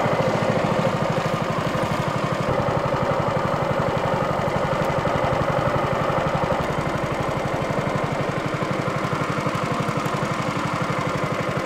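Small gas engine of a boat's mud motor running steadily, with an even, rapid firing beat.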